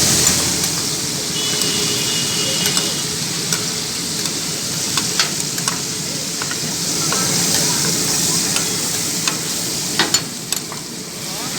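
Kaleji (liver) sizzling as it fries on a hot iron tawa griddle, stirred with sharp metal clicks and scrapes scattered through, two close together near the end.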